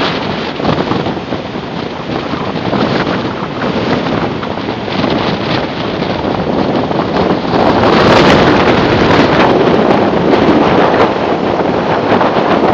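Strong hurricane-aftermath wind buffeting the microphone in gusts, louder from a little past halfway.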